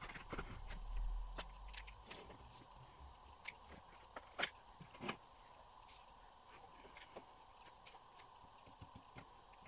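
Posca paint pens handled and used on paper: faint, scattered clicks and taps, about one a second.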